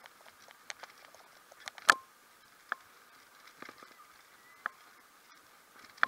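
Bicycle rattling as it rolls along a paved path: irregular sharp clicks and knocks from the frame and handlebar fittings, the loudest about two seconds in.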